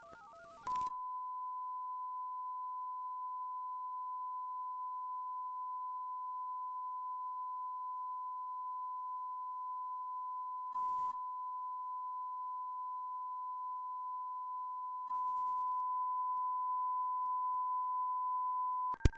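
Emergency alert attention tone of a recreated Russian emergency broadcast: a single high, steady electronic tone held unbroken for about eighteen seconds. About eleven seconds in a short burst of hiss passes, and from about fifteen seconds in the tone is a little louder with a hiss under it.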